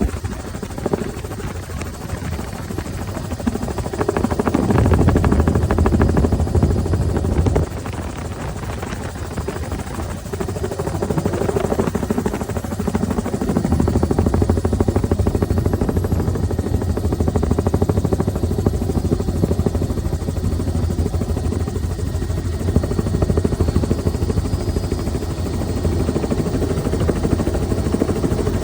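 Helicopter running loudly and steadily, its rotor making a fast, dense chop with a deep drone underneath; the sound swells for a few seconds and then drops suddenly about a quarter of the way in.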